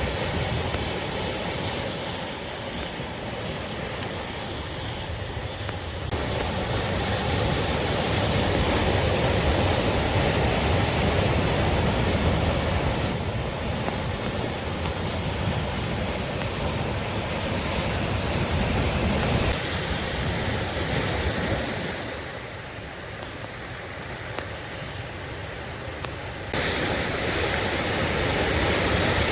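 Sea waves washing and breaking on the shore in a continuous rushing surf. The sound changes abruptly several times, getting louder or softer at once, where the recording cuts between takes.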